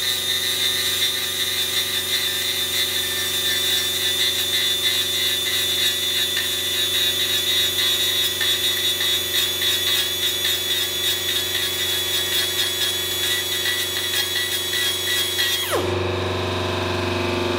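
Compressed-air die grinder with an aluminium-cutting carbide burr running at high speed with a steady high whine, cutting weld burn-through out of a welded aluminium pipe. Near the end it is let off and winds down with a falling whine, leaving a lower steady hum.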